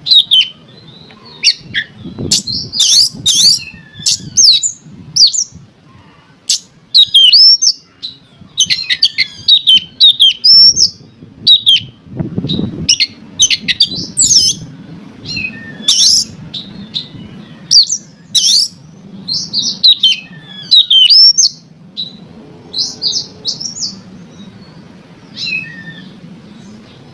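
Oriental magpie-robin (kacer) singing a fast, varied song of whistles and scratchy chirps in short repeated phrases with brief gaps. It is the kind of song used as a lure to set a kept magpie-robin singing.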